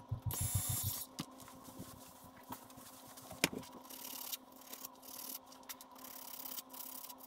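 Sandpaper rubbed by hand over the bases of small control horns, scuffing them up so epoxy will grip: faint scratchy strokes that come and go, louder for the first second.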